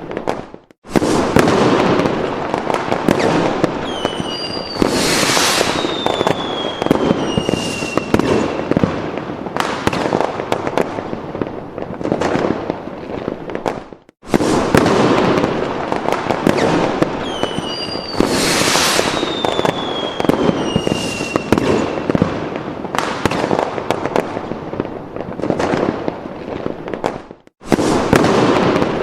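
Looped fireworks sound effect: continuous crackling and popping bursts with whistles that fall in pitch. The loop cuts out briefly and starts over twice.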